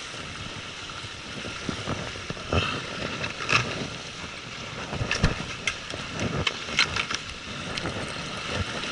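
Waves washing against a rocky shoreline and wind on the microphone, a steady hiss, with a string of irregular clicks and knocks in the middle few seconds.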